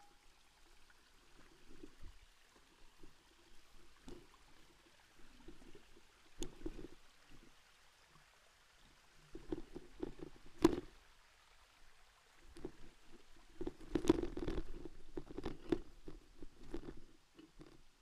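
Bicycle clattering and knocking in irregular bursts, as when riding over a rough dirt trail. There are sharp knocks, the loudest about ten seconds in, and a thick run of clatter a few seconds later.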